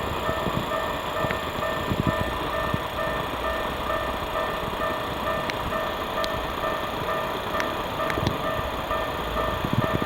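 Japanese level-crossing warning bell ringing in a steady repeating ding over the rumble of a passing train.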